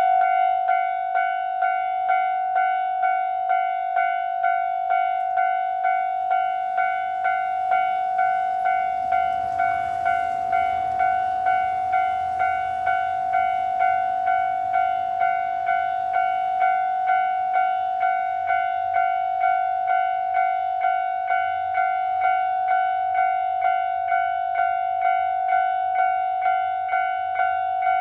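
Japanese level-crossing warning bell ringing: one high, clear ding repeated at a rapid, even rhythm, signalling an approaching train. A faint rushing noise swells briefly about a third of the way in.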